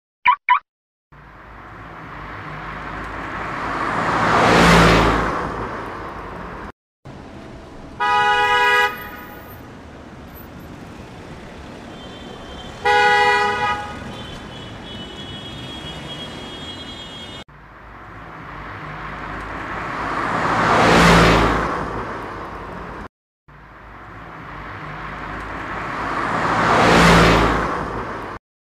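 Car sound effects: a car drives past three times, its engine and road noise swelling to a peak and then cutting off each time. Between the first and second pass, two short car-horn honks about five seconds apart sit over a low, steady running noise.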